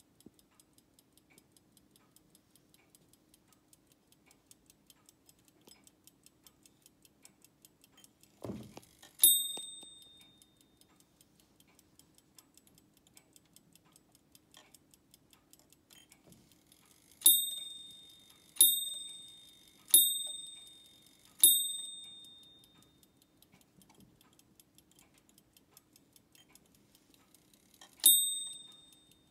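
Imhof Swiss eight-day striking clock ticking fast and steadily while its monk automaton rings a small bell. There is a single stroke about nine seconds in, four strokes about a second and a half apart from about seventeen seconds, and another single stroke near the end, each a clear high ring that dies away. A brief low thud comes just before the first stroke.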